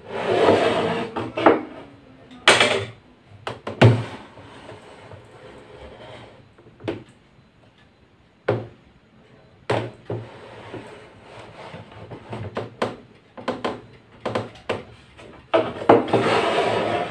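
Wood and metal scraping and knocking as the blade of a homemade table saw is tilted and raised through its slot in the wooden top, with a metal square being set against it. A longer scrape at the start and another shortly before the end, with scattered sharp knocks and clicks between.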